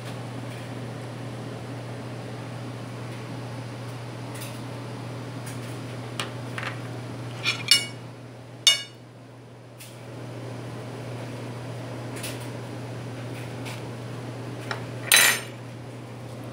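A few sharp clinks on a glass bowl, each ringing briefly: a pair about halfway, another just after, and the loudest near the end. A steady low hum runs underneath.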